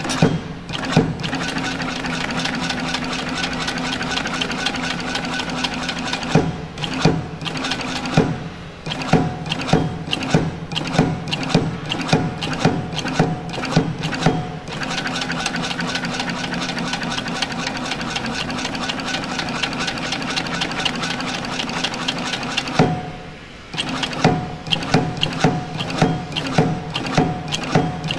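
Double-thread seated-type inseam sewing machine stitching a suede shoe: the motor hums and the needle runs in a fast, even stitching rhythm, twice slowing to separate stitches about two a second, then running fast again.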